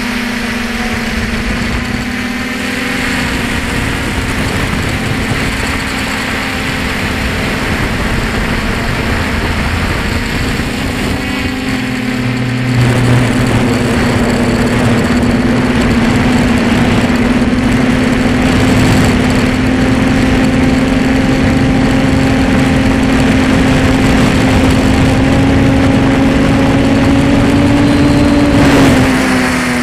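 Electric motor whine of a long-range FPV drone, a steady tone with wind rushing over the onboard camera's microphone. The whine gets louder a little before halfway through and falls in pitch near the end as the motors slow.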